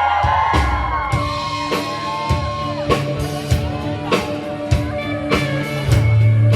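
Band playing live: guitar and bass over a drum kit keeping a steady beat, with a drum hit about every 0.6 seconds. The bass moves to a louder, lower note near the end.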